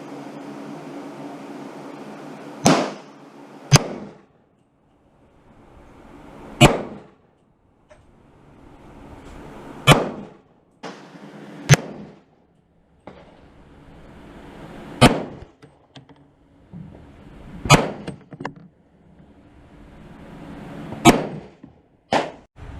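Rifle shots from a Daniel Defense rifle fired one at a time, about nine of them, one to four seconds apart. Each is a sharp crack with a short ring-out.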